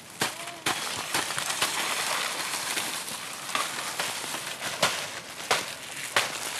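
Dry maize husks and leaves crackling and rustling as ears of corn are picked and husked by hand, with irregular sharp snaps.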